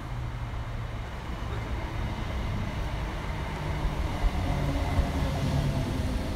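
ScotRail electric multiple unit running into the platform and passing close by: a steady low rumble of wheels on rail with a whine of several tones from the traction equipment, growing louder as it draws level, and two knocks about two-thirds of the way in.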